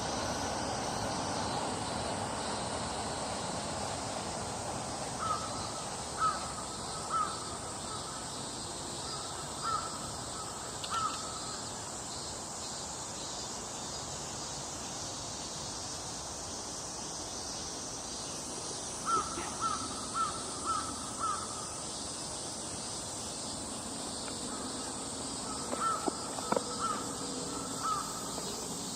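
Crow cawing in short series: a few single caws, then a run of five quick caws, then another run of four near the end, over a steady outdoor hiss.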